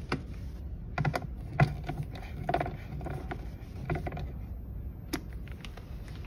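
Hand screwdriver snugging down self-tapping sheet-metal screws in a plastic monitor housing: a handful of short clicks and scrapes at irregular intervals.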